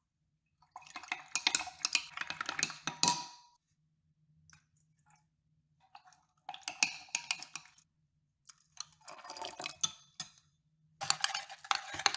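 A stirring rod clinking and scraping against a glass beaker as it works through a wet, thickening gel, in four bursts of stirring with short pauses between them. The gel is calcium acetate solution setting in isopropyl alcohol.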